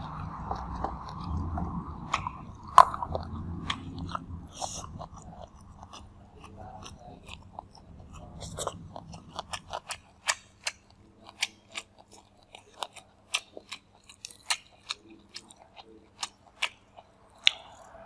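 Close-miked chewing and eating, with wet mouth sounds for the first half. About halfway the sound turns into a run of sharp, separate crunches and clicks, one or two a second.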